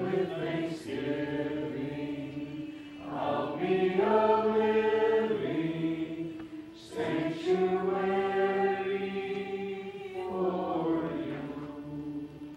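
Slow church music of long sustained chords, each held for a couple of seconds before the next, fading away near the end.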